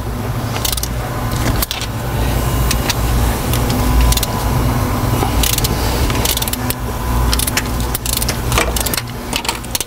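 A hand ratchet breaking loose the cylinder head bolts on an LS3 V8, with scattered metallic clicks and clinks from the ratchet and socket, some in quick runs, over a steady low hum.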